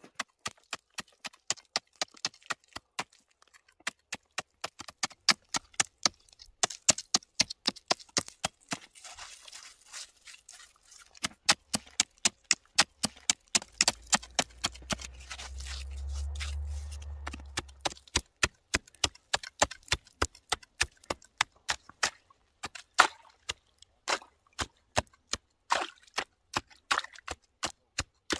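A large serrated knife stabbing and chipping into lake ice, a steady run of sharp knocks and crunches, about three to four strikes a second, as a fishing hole is cut through. A low rumble sits under the strikes about halfway through.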